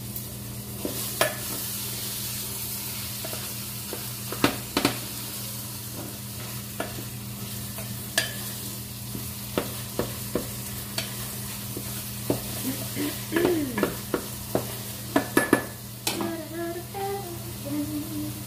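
Meat frying and sizzling in a pan while a utensil stirs it, with scrapes and clicks against the pan, over a steady low hum.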